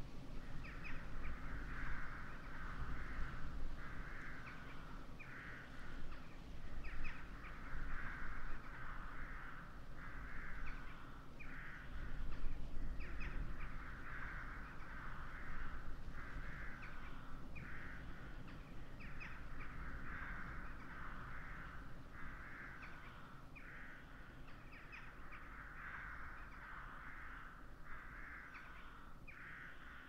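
A flock of crows cawing, many harsh calls overlapping without pause, over a low, gusty rumble of wind on the microphone.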